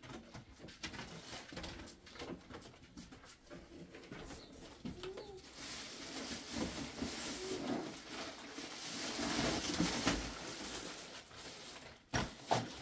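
Plastic bag and paper packaging rustling as they are handled, with a couple of sharp knocks near the end.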